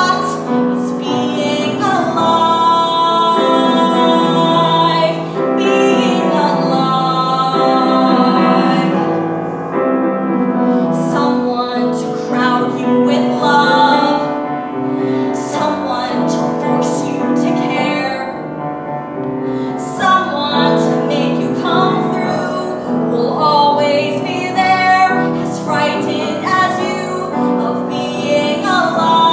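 A woman singing a musical-theatre song, accompanied on a grand piano, holding some notes for a couple of seconds at a time.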